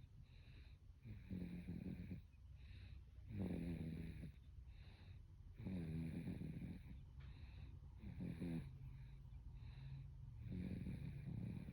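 A baby snoring in its sleep: a low, rattly snore on each breath, repeating about every two to two and a half seconds, with a breathy hiss between the snores.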